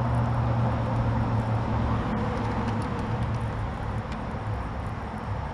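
A steady, low motor hum with a faint background hiss, easing slightly after about four seconds.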